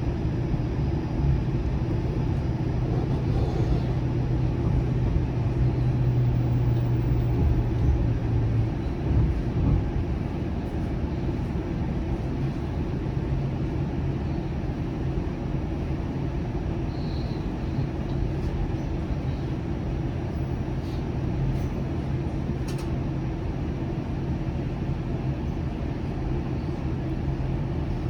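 Flexity Outlook low-floor streetcar running along the line: a steady low rumble of wheels and running gear with a steady hum, strongest for about the first nine seconds, then fading.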